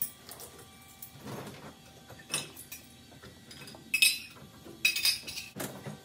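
Metal cutlery and dishes clinking as a dishwasher is unloaded, in scattered clinks that ring briefly, the loudest a cluster about four and five seconds in.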